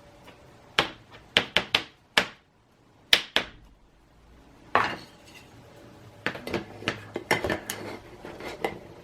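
Light clicks and taps from a trading card being handled and slid into a rigid plastic top loader. The clicks come in small clusters, with a brief lull a little over two seconds in.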